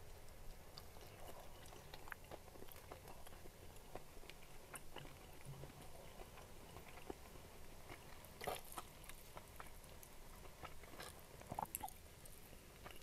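Close chewing of crispy fried chicken, ayam geprek: a steady run of small wet mouth clicks, with a few louder ones about eight and a half and eleven and a half seconds in.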